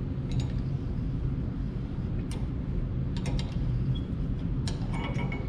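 Adjustable hand reamer being turned by hand with a wrench in a king pin bushing of a 1949 Ford F1 spindle: scattered light metal clicks and ticks as the tool is worked round and the reamer cuts its way up through the bushing. A steady low hum runs underneath.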